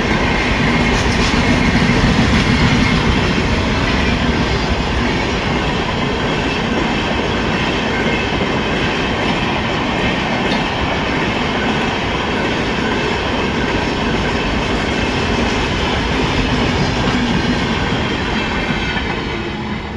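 A train rolling past at speed: a steady rumble with wheels clattering over the rail joints, dropping away near the end.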